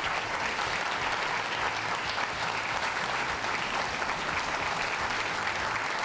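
Audience applauding steadily throughout.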